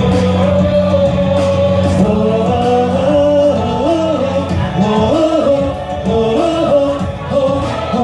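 A man singing live into a microphone over a pop ballad backing track with choir-style backing vocals. Held low notes run under the first half, then the vocal lines move up and down.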